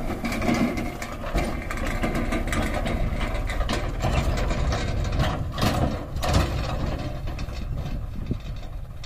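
John Deere 5204 tractor's three-cylinder diesel engine running steadily at low speed while it tows a tipping trailer that is unloading, with a few louder clanks a little past halfway.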